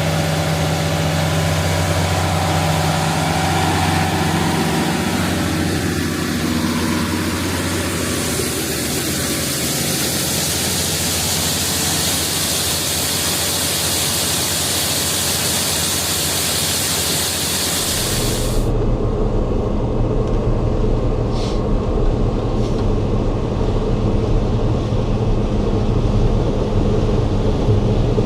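Heavy farm-machinery diesel engine running steadily under a loud hiss. The hiss stops abruptly about two-thirds of the way through, leaving only the low engine drone.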